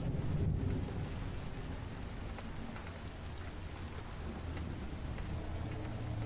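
Steady rain falling on pavement, with a low rumble of thunder that is strongest in the first second and then eases.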